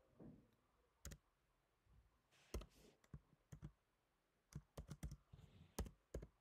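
Computer keyboard typing, faint: separate keystrokes with short gaps, a quicker run of several keys in the second half.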